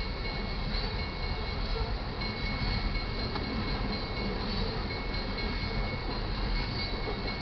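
Loaded coal cars of a freight train rolling past at speed: a steady rumble and rattle of steel wheels on the rails.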